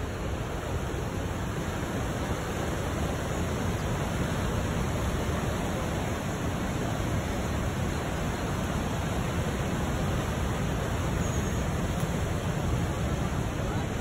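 The Manavgat River rushing over the Manavgat Waterfall: a steady wash of fast-flowing white water.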